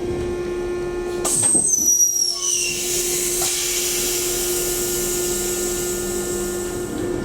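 Disc brakes of an STB class 5047 railcar squealing: a high-pitched squeal made of several tones that glide down in pitch about a second in, then a steady high hiss. A steady low hum from the vehicle runs underneath.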